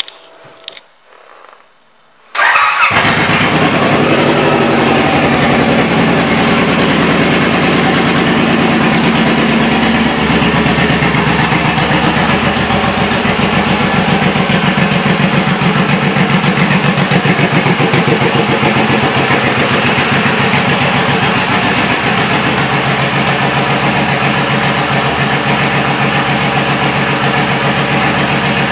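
2009 Suzuki Boulevard C109R's V-twin engine, breathing through Cobra aftermarket exhaust pipes, starts up about two seconds in and then runs steadily with an even, pulsing beat.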